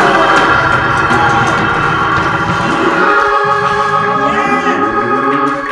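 Organ playing long, sustained chords.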